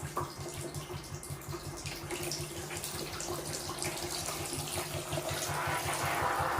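Air-conditioner cleaning machine running in steam mode: its pump pulses rapidly and evenly while water hisses from the spray gun. The hiss grows louder in the last second or so as the water, at 80 degrees, heats toward steam.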